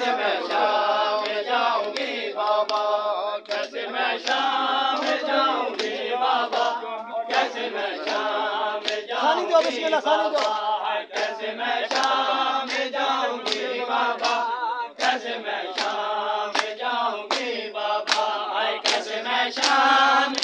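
A group of men chanting a noha, a Shia mourning lament, in unison while beating their chests in matam. The hand slaps land together at a steady beat of about one to two a second under the chanting.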